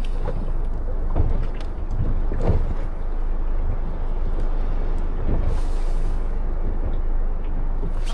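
Wind rumbling on the microphone, with a few small knocks and clicks from handling the gear.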